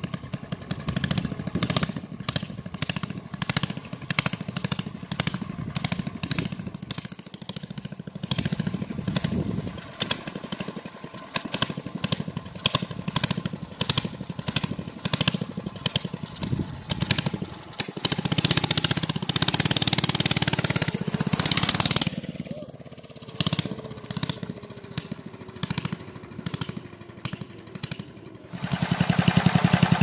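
Single-cylinder Briggs & Stratton 8 HP flathead engine on a mini bike being ridden, its note rising and falling in loudness as the bike comes up the road. About a second and a half before the end it changes to the same engine idling close by, louder and steady.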